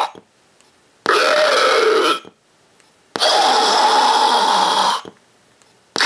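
Two zombie growl sound bites played back by the IR-XX03 laser tag sound effects board, one about a second long and a longer one about two seconds in, each set off by an infrared hit on the board.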